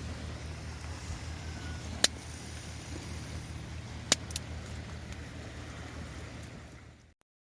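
Campfire crackling: three sharp pops, about two seconds in and twice around four seconds, over a steady low rumble. The sound fades out near the end.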